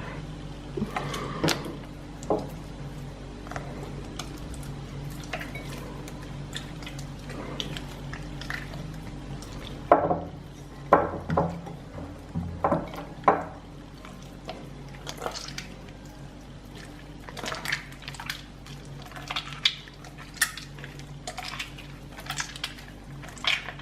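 Clear-glue slime being mixed in a bowl as more liquid detergent is worked in: irregular sticky, wet clicks and scrapes, with a cluster of louder ones about ten to thirteen seconds in.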